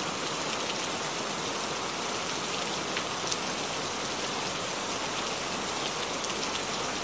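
Steady rain falling: an even hiss with a few single drops standing out.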